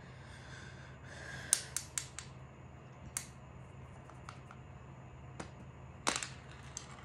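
Scattered sharp clicks and taps over a low steady hum: a quick run of four early in the second and third seconds, single clicks after that, and a louder cluster near the end.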